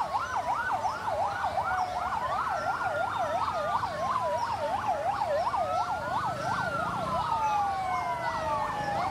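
Fire engine sirens: a fast electronic yelp warbling about three times a second, layered over a slower rising-and-falling wail. They cut off suddenly at the end.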